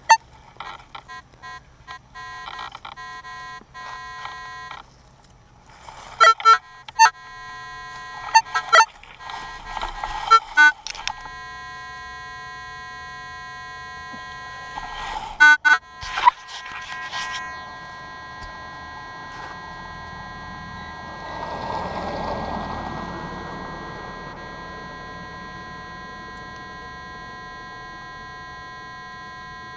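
Minelab CTX 3030 metal detector sounding its electronic target tones in short beeps. A digging tool strikes sharply into turf and soil several times around 6–11 seconds and again around 15–16 seconds. The detector then holds a steady tone while the soil plug is worked by hand.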